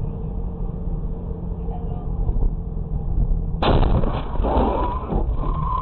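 Steady engine and road rumble inside a moving car, then, about three and a half seconds in, a sudden loud crash as the car is hit, followed by crunching and scraping and a wavering high squeal near the end.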